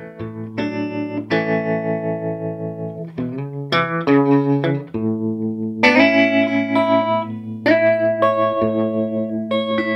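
Electric guitar played through an early-1960s Davoli D531T valve amplifier with its tremolo at minimum speed: ringing chords and a quick run of single notes, the volume pulsing evenly a few times a second. The pulsing is the amp's restored tremolo circuit, working again on new capacitors.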